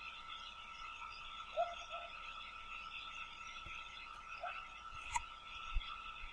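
Faint background ambience: a steady high-pitched tone over a soft hiss, with a few short low calls about a second and a half in and again past four seconds, and a faint click near the end.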